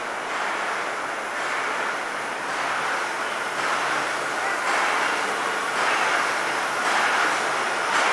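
Steady noise of processed-cheese factory machinery, running without a break.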